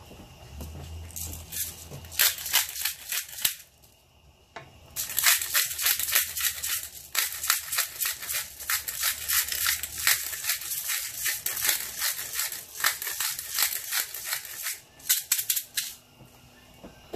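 Pepper grinder being worked over a pan of cheese sauce: a rapid run of dry crackling clicks as peppercorns are crushed. The clicking comes in two stretches, with a short pause about four seconds in, and stops about a second before the end.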